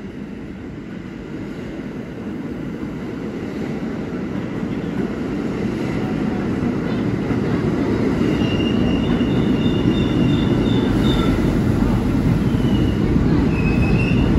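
R46 subway train pulling into the station past the platform: a steady rolling rumble that grows louder as the cars pass. From about eight seconds in, short high-pitched squeals come from the wheels as it slows.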